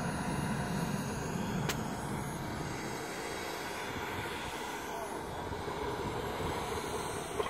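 Small turbine engine of a radio-controlled model jet running steadily: an even rushing noise with a faint high whine. There is a single short click about two seconds in.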